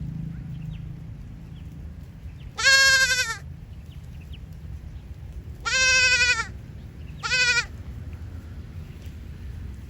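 Bleating of a sheep or goat: three high calls, about three, six and seven and a half seconds in, the last one short, over a low steady background rumble.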